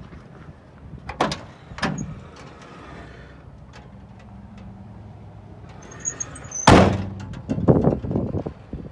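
The metal cab door of an old International 4070B truck is worked by hand: two clunks of the latch and door early on, a short high squeak, then a loud slam about two-thirds of the way through, followed by several smaller knocks and rattles.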